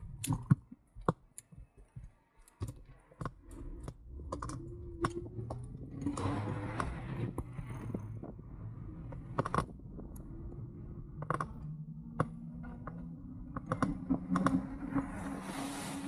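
Irregular sharp clicks and rattles from a moving e-bike, with a steady hum that comes in about six seconds in and again near the end.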